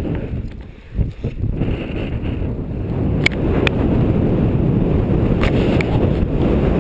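Strong wind buffeting the microphone as a deep, steady rumble. It dips briefly about a second in, then builds and holds, with a few sharp clicks.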